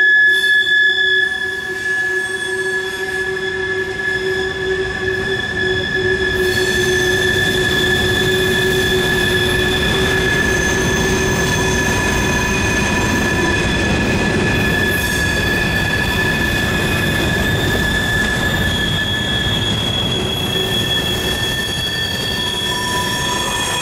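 Freight railcar wheels squealing continuously as they grind through a tight curve, several high steady whining tones layered over the rolling rumble of the cars; the tones shift and new ones join as different cars pass.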